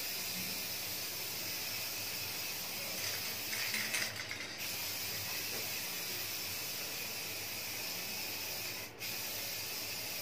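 Aerosol spray can of clear coat hissing in a long, steady spray, briefly louder about four seconds in, with a short break near the end.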